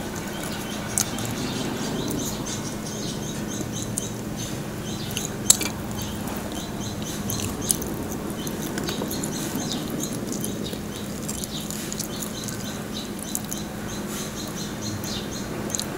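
Close-miked mukbang eating of crispy deep-fried pork knuckle: chewing, crunching of the crispy skin and wet mouth and finger noises, heard as many small crackles and clicks, with a sharp crack about five and a half seconds in. A steady low hum runs underneath.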